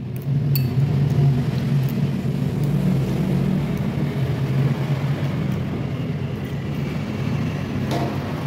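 A steady low rumble throughout, with a few light clicks of a metal spoon and fork against a ceramic bowl.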